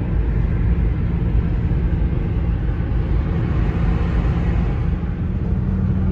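Steady road noise heard inside a car cabin at highway speed: a low rumble of tyres and engine with a steady hum that grows a little stronger near the end.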